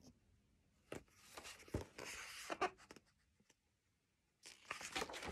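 Faint rustling and a few light clicks from a large paperback picture book being handled as it is held open, in two short spells with a quiet stretch between.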